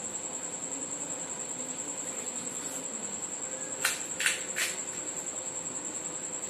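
A cricket trilling steadily at a high pitch. About four seconds in come three short, crisp cracks, a fuchka shell being broken by hand.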